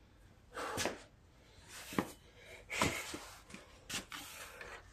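A few light knocks and scuffs of handling, about a second apart, with quiet between.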